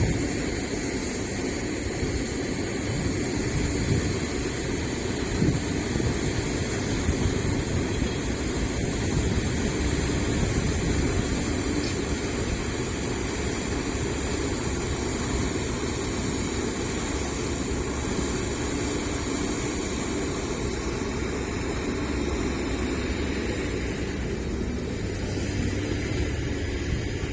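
Heavy diesel earthmoving machinery running steadily as an excavator loads soil into a dump truck.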